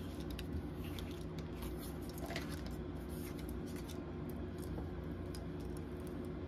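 Tarot cards being handled: light clicks and slides of card stock, frequent in the first few seconds and sparser after, over a steady low room hum.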